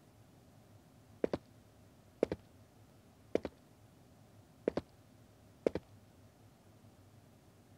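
Five sharp double clicks, each a quick pair, coming about once a second over a faint room hush.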